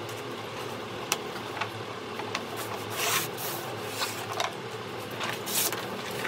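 Stiff brown paper rustling and rubbing as it is unrolled and smoothed flat by hand, in short scraping bursts, the loudest about three seconds in. A steady low hum runs underneath.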